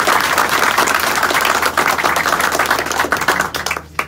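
A small group of people applauding, with dense, rapid clapping that dies away near the end, followed by one last clap.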